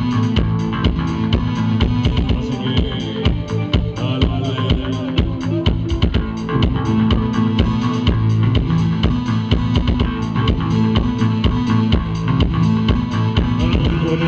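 Live rock band playing, with a steady drum beat driving bass guitar and guitar.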